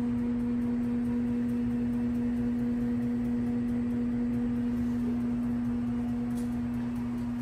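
Steady electrical hum: one even low pure tone with a fainter higher overtone, unchanging in pitch and level.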